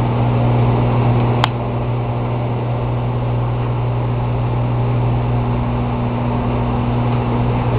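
Microwave oven running with a steady low electrical hum, with a single short click about one and a half seconds in.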